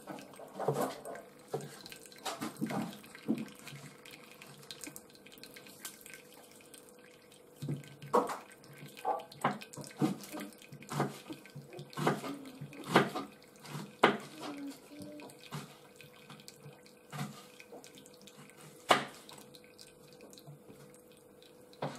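Watery juices from frying shaggy ink cap mushrooms being poured off from a tilted frying pan past its held lid, in irregular splashes and dribbles. The excess liquid is being drained so the mushrooms fry rather than boil.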